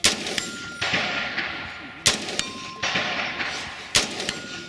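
Three rifle shots about two seconds apart, each echoing, and each followed a fraction of a second later by the short ring of a steel target being hit.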